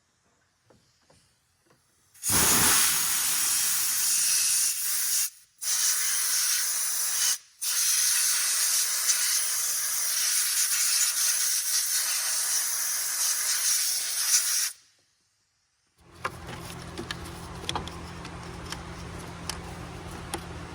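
Compressed-air blow gun blasting dust out from around the fuel injector: a loud, even hiss in three blasts with two brief breaks, lasting about twelve seconds in all.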